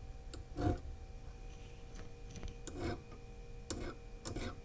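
Rockwell hardness test file drawn across a sewing machine's steel needle bar in several short scraping strokes, the file skating off the surface: a sign the needle bar is harder than that file.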